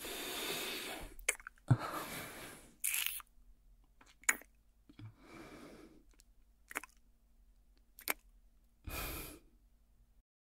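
A man's slow, close-up breathing: about five airy breaths with pauses between them, getting further apart, and a few soft mouth clicks in the gaps.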